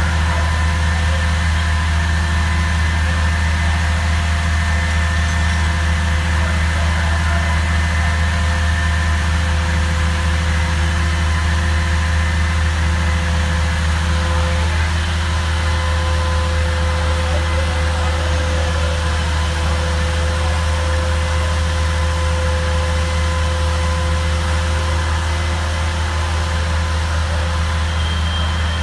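A fire truck's diesel engine running steadily: a constant, loud low drone with a few faint steady tones above it.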